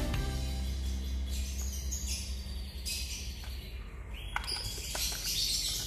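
High bird-like chirping over background music whose low held notes fade out about three seconds in.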